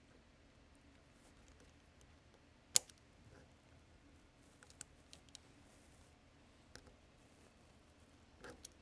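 Small clicks of the steel parts of a Maxim MG08 machine-gun lock being fitted by hand during reassembly, with one sharp click about three seconds in and a few fainter ones after.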